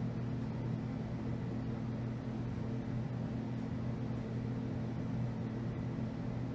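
A steady low hum with no change or break, like a fan or household appliance running.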